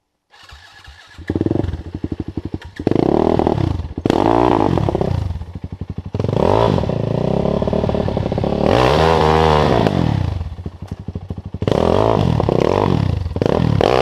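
Enduro motorcycle engine revved hard in repeated bursts, its pitch climbing and falling again and again, as the bike is pushed up a steep loose slope. It starts about a third of a second in.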